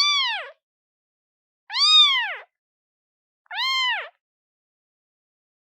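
Day-old newborn kitten meowing, calling for its mother: three short meows about two seconds apart, each rising then falling in pitch.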